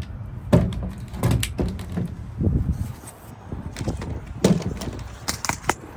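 Hand work on an ignition lock: irregular clicks, knocks and light rattling of tools and small parts being handled, with two sharper knocks about half a second in and four and a half seconds in.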